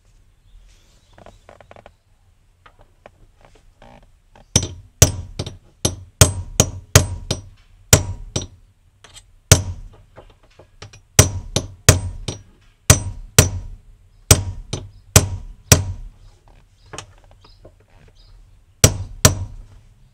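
A hammer tapping a thin metal rod set against the lock ring of a BMW E36 fuel level sender, to knock the ring round and loose. About two dozen sharp, ringing metallic taps come in uneven runs, starting about four and a half seconds in, with two last taps close together near the end.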